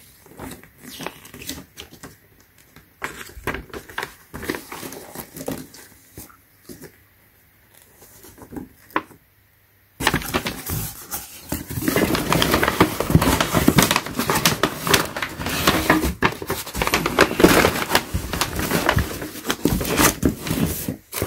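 Paper rustling as an instruction manual's pages are handled and turned. About halfway through, it becomes louder and busier: rustling and scraping of cardboard and packing paper as a hand works inside a cardboard box.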